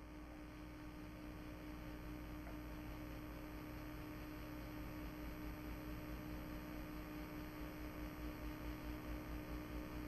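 Steady electrical hum with a faint hiss behind it, with no distinct action sounds.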